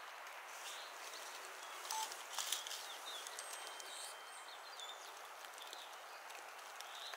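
Outdoor ambience: a steady soft hiss with scattered faint bird chirps, and a few brief clicks about two seconds in.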